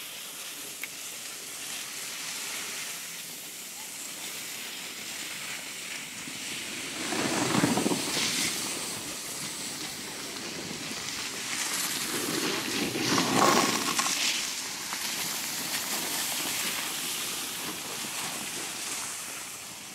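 Skis sliding and scraping over packed snow with a steady hiss, swelling louder twice, around eight and thirteen seconds in, as the skis carve turns.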